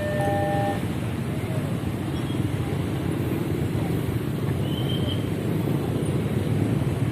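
Passing vehicle traffic with a steady engine rumble, opening with the last notes of a multi-tone vehicle horn that stops within the first second.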